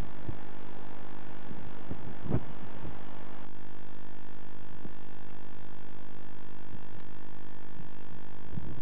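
Steady electrical hum on a home-video tape recording, with scattered soft low thumps and a louder thump about two and a half seconds in. The background noise changes at a cut a little after three seconds.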